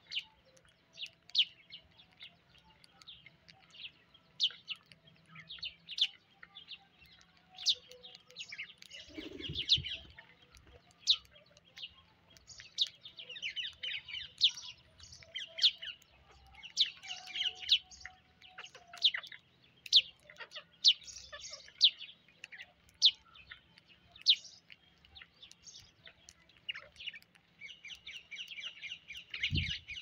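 A mixed flock of rose-ringed parakeets and house sparrows calling while feeding: many short, sharp chirps and squawks with denser bursts of chatter, and a brief low thump about nine seconds in and again just before the end.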